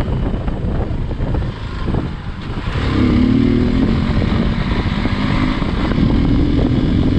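Hero Xpulse 200's single-cylinder engine running as the bike is ridden, over a low rumble of wind on the microphone. The engine note grows louder and wavers about three seconds in as the rider opens the throttle.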